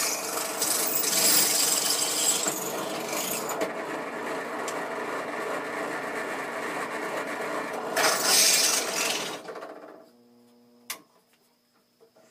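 Benchtop drill press running with its bit cutting into the workpiece held in the vise, louder about eight seconds in. Near ten seconds the motor is switched off and hums as it spins down, then a single click.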